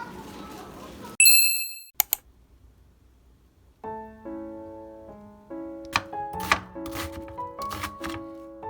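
A loud, bright bell-like ding about a second in, then a click and a short pause, followed by background music of steady held notes with sharp knocks over it.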